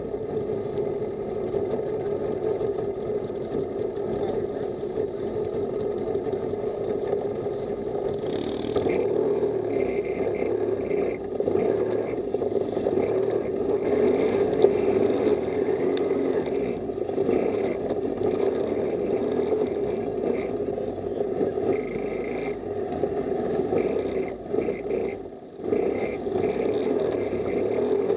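Off-road buggy's engine running steadily as it drives over a dirt track, dropping briefly in level near the end.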